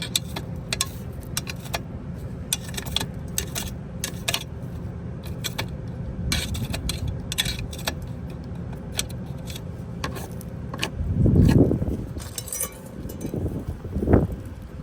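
Repeated small metallic clicks and clinks, as of tools and parts being handled, over a steady low hum from the running equipment. There is a louder low rumble about eleven seconds in.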